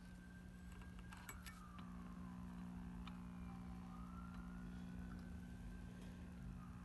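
A 1955 Westinghouse clock radio's speaker giving a faint steady hum, with a thin whistle that slides down in pitch, then rises and falls again as the tuning dial is turned across the band: the whistle of a weak station being tuned through.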